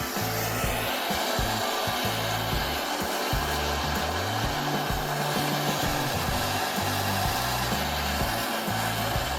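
Gas torch flame hissing steadily while heating a copper water pipe for soldering, over background music with a stepping bass line.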